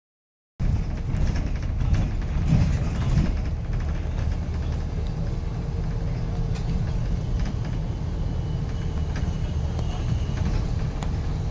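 Steady low rumble of a road vehicle running, starting abruptly about half a second in.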